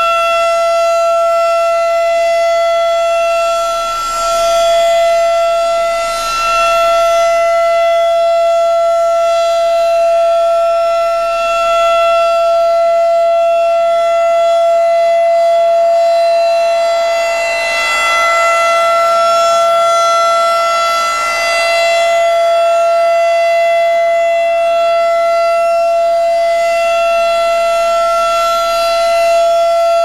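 Federal Signal 2001-DC outdoor warning siren sounding a loud, steady single tone during a test. Its rotating horn makes the sound swell and fade gently as it turns toward and away.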